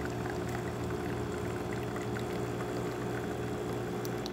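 Gaggia Titanium espresso machine's freshly replaced water pump running steadily through an espresso shot, a constant hum, with espresso pouring from the spouts. Its even running and good flow show the repaired machine brewing normally.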